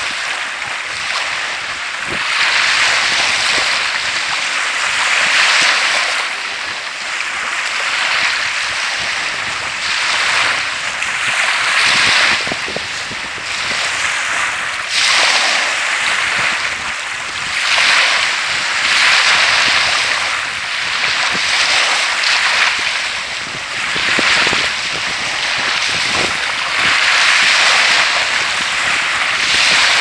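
Small waves of the Sea of Azov breaking and washing up onto a shelly beach, the surf hiss swelling and fading about every three seconds.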